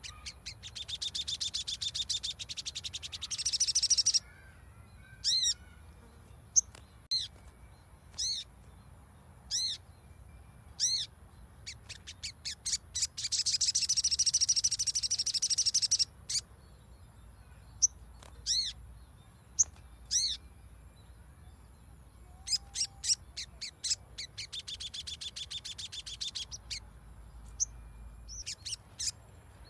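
Little spiderhunter (sogon) calling: sharp single call notes repeated about once a second, broken by three long, rapid chattering trills of about three seconds each.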